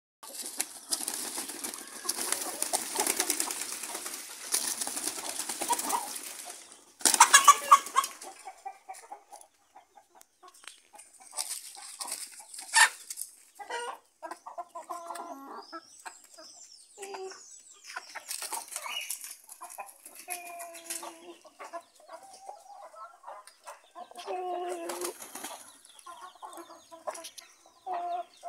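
Chickens flapping and scuffling for the first several seconds, then one loud squawk about seven seconds in, followed by hens clucking on and off.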